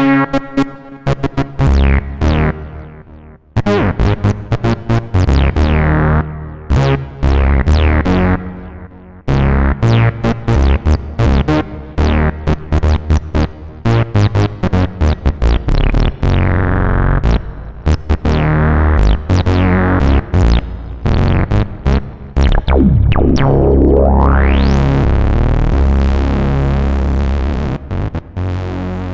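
Home-built breadboard analog synthesizer playing a quick run of short, bass-heavy notes, the brightness of each note dying away fast. About three quarters of the way through, a rising sweep opens into a long held bright tone that fades out near the end.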